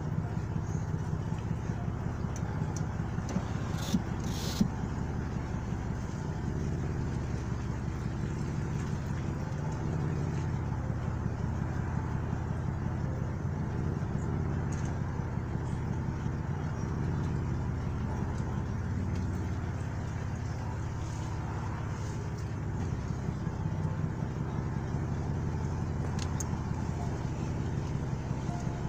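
Car engine and road noise heard from inside the cabin while driving, a steady low drone. A couple of short sharp clicks about four seconds in.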